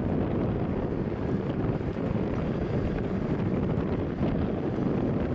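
Boeing 767-200ER's two jet engines running at low taxi power as the airliner rolls slowly onto the runway: a steady low noise, with wind on the microphone.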